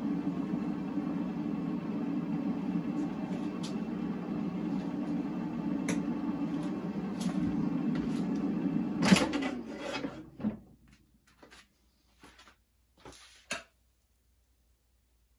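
An appliance's fan or motor hums steadily, is switched off with a sharp click about nine seconds in and winds down over a second or so. A few light knocks follow.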